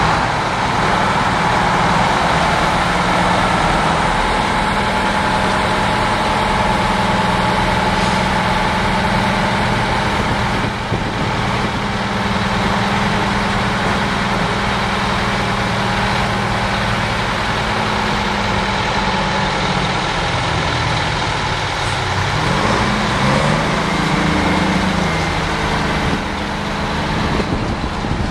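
Detroit Diesel-powered heavy trucks running as they pull away, a steady, loud diesel engine note. About three-quarters of the way through, one engine revs up in a rising pitch.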